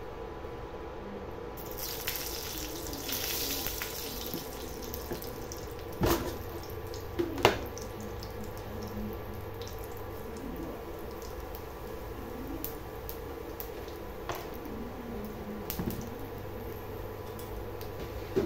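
Hot oil in a kadai sizzling and crackling as a dried red chilli and a spoonful of seeds go in for tempering. Two sharp knocks come about six and seven and a half seconds in.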